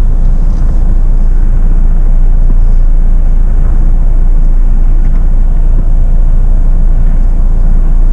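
Jeep Meridian SUV driving slowly over an off-road trail: a steady, loud low rumble.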